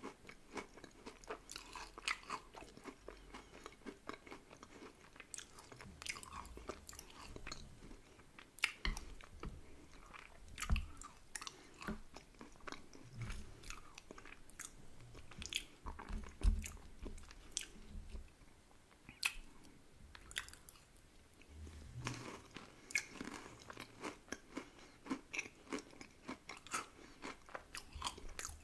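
Close-miked eating: chewing and biting ice cream with crunchy chocolate and wafer topping, full of irregular sharp wet mouth clicks and small crunches.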